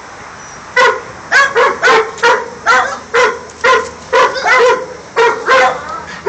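Dog barking over and over, about two short barks a second, starting about a second in.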